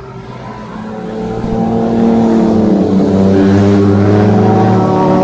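A group of motorcycles approaching along the highway, their engines growing louder over the first two seconds. After that they run steady and loud as the bikes come close.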